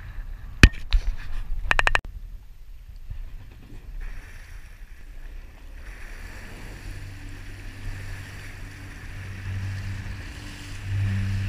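Water sloshing against a jet ski's hull with wind noise; a sharp click and a quick run of ticks in the first two seconds. From about six seconds in, a jet ski engine hums at low revs under the splashing, growing louder near the end.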